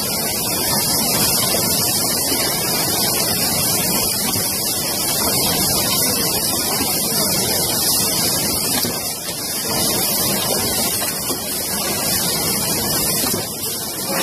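Rotary yogurt cup filling and sealing machine running: a steady hiss over a low mechanical rumble, with no distinct strokes standing out.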